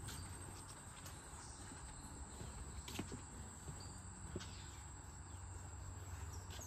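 Faint steady high-pitched insect chirring, with a low hum underneath and a few scattered soft taps.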